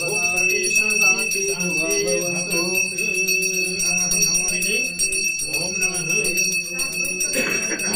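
Puja hand bell rung continuously during aarati, a steady high ringing, with a group of voices singing the aarati hymn.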